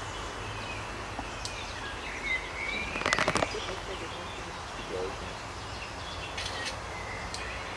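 Scoped rifle firing a quick run of sharp shots, all within less than half a second, about three seconds in. Birds chirp around it.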